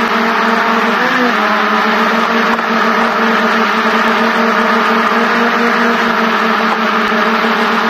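DJI F550 hexacopter's six electric motors and propellers running steadily while hovering, heard from a camera mounted on the frame: a loud, even buzzing drone with a brief wobble in pitch about a second in.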